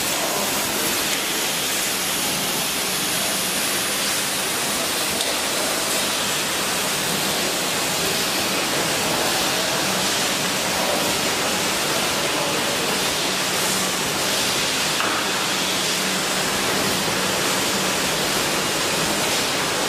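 Steady noise of a running can packaging line's conveyors and machinery: an even hiss with a faint steady hum underneath.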